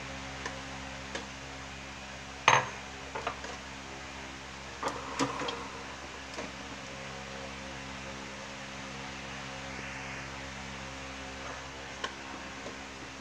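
A few clinks and knocks of a metal cooking pot and its utensils, the loudest about two and a half seconds in and a smaller cluster around five seconds, over a steady low hum.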